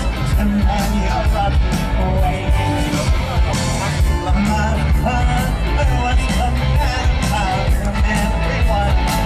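Rock music with a singer over a steady drum beat and bass.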